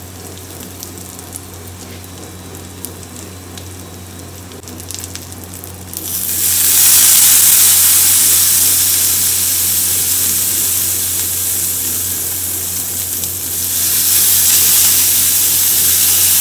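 Green chillies frying in oil in a pan, with a soft sizzle and occasional small pops. About six seconds in, lemon juice squeezed into the hot oil sets off a loud, hissing sizzle with steam. It eases a little, then swells again at about fourteen seconds as more juice goes in.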